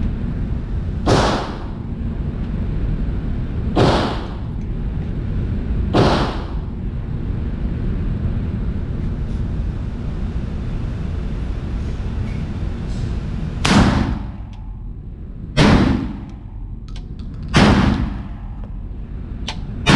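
Shots from a VR80 semi-automatic 12-gauge shotgun echoing off the booth's metal walls: three shots a couple of seconds apart, a pause of several seconds, then three more about two seconds apart, over a steady background noise.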